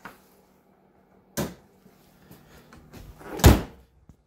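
A 2005–2009 Subaru Legacy GT's hood being shut. A short knock comes about a second and a half in, then a loud, deep slam near the end as the hood drops and latches.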